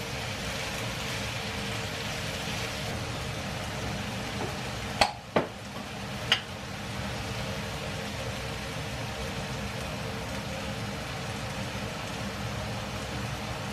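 Chopped tomatoes, onion and tofu sizzling steadily in a frying pan, with three sharp clicks about five to six and a half seconds in.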